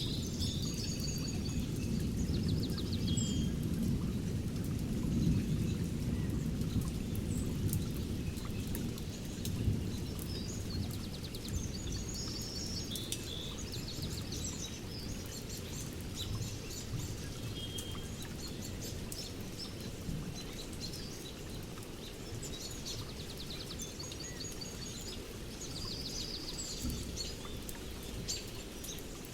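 Thunderstorm ambience with birdsong. A low rumble of rain and distant thunder eases over the first several seconds, while songbirds chirp in short repeated phrases throughout.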